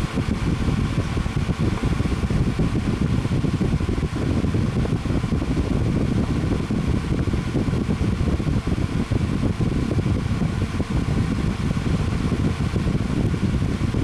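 Design Accents 9-inch personal box fan running on its highest of three speeds: a steady blowing whoosh of air from the blades with a faint motor hum.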